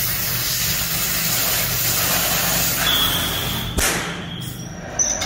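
Oxy-fuel gas cutting torch hissing steadily as its flame cuts through steel plate, over a steady low hum. A sharp knock comes a little under four seconds in, and after it the sound is quieter.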